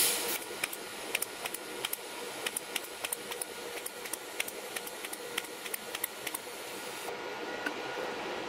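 TIG welding arc at low current, about 30 amps, fusing the end of a 3 mm stainless steel wire rope to its bushing: a loud burst as the arc strikes, then a steady hiss with quick irregular crackles, cutting off about seven seconds in.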